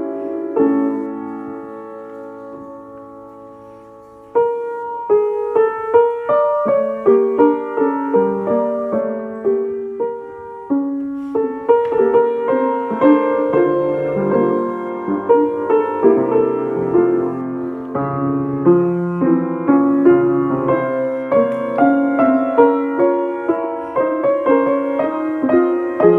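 Rönisch piano being played. A held chord rings and dies away over about four seconds, then the playing resumes with a flowing passage of struck notes and chords.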